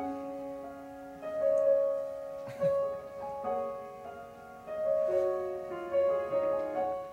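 Solo piano playing a slow introduction of held notes and chords that change every second or so. A soft knock comes about two and a half seconds in.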